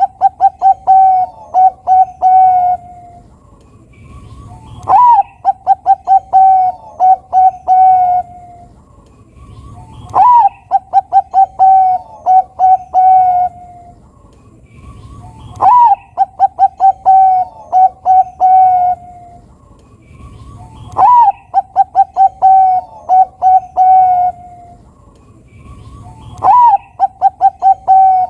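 A Bangkok-type zebra dove (perkutut) singing its cooing song. Each phrase opens with a rising-and-falling note followed by a quick run of short coos, and the phrase comes again about every five seconds.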